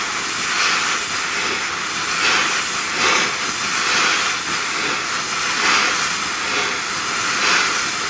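Gas torch flame hissing steadily against a steel tie rod, with gentle swells in loudness about once a second. The rod is being heated so that it expands enough for the seized tie rod end to loosen.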